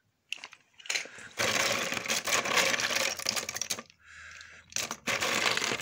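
Hard plastic toy figures clattering and rattling against each other and the sides of a plastic storage bin as a hand rummages through them. The clatter comes in two long spells, the first starting about a second and a half in, with a short quieter lull between them.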